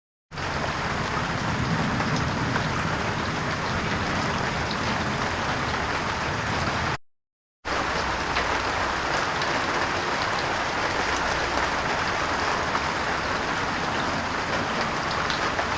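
Rain falling steadily, a dense hiss with scattered droplet ticks. It is two separate rain recordings, with a brief silence between them about seven seconds in.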